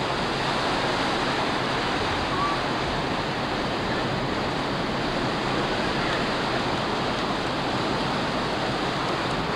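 Ocean surf breaking close by: a steady rushing wash of waves.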